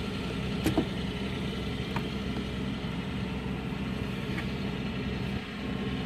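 An engine idling steadily, with a faint click or two of metal about a second and two seconds in.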